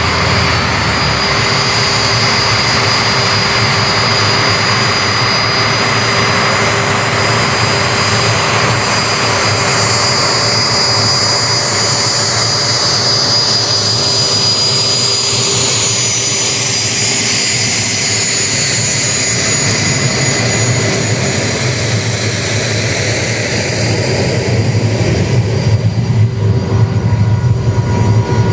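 CT-155 Hawk jet trainer's Rolls-Royce Adour turbofan whining at taxi power as the jet rolls past. Its high whine slides down in pitch as it passes, and near the end a lower, uneven engine rumble grows louder.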